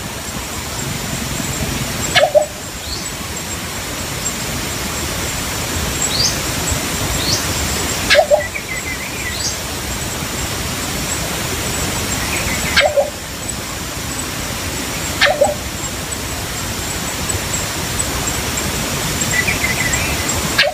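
Philippine coucal giving short low hoots, one every few seconds, each marked by a sharp click, over a steady hiss. Faint higher chirps of other birds come in between.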